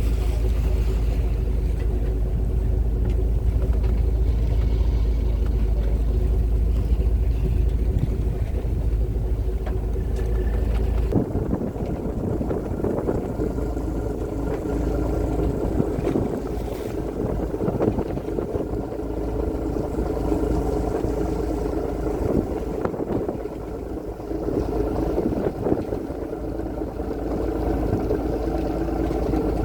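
A fishing trawler's engine running steadily, heard on board. About eleven seconds in, the deep low rumble drops away and the sound turns rougher and more uneven.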